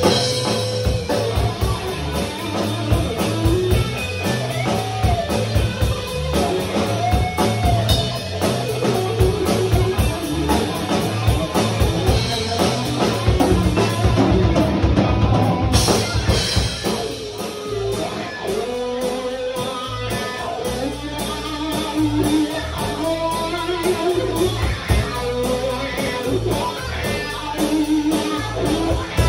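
Live rock band playing an instrumental passage: electric guitar melodic lines over a drum kit.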